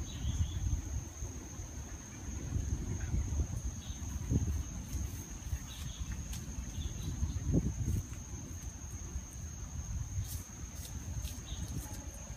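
Insects trilling in one steady high tone, with a few faint bird chirps and an uneven low rumbling noise underneath.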